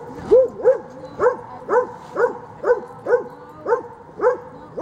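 A dog barking over and over at a steady pace, about two barks a second, each bark rising and then falling in pitch.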